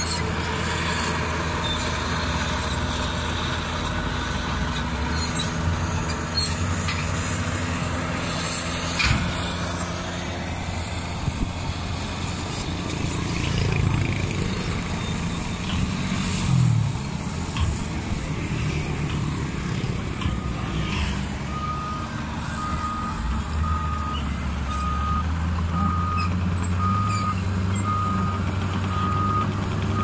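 Caterpillar D6R bulldozer's diesel engine running steadily, with a few sharp clanks. About two-thirds through, a backup alarm starts beeping about once a second as the dozer reverses.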